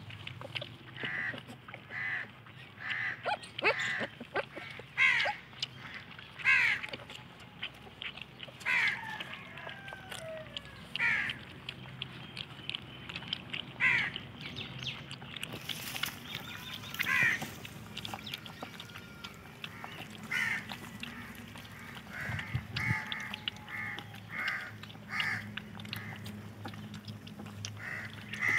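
Short, high animal calls repeated in runs about a second apart, with single calls and a few falling, whine-like glides in between.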